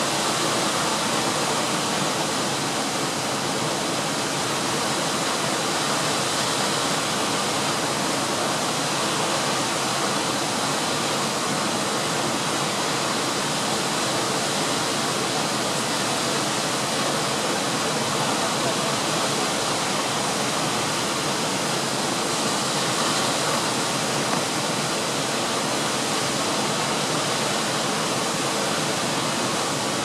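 Siklawa waterfall cascading over rock: a steady, even rush of falling water.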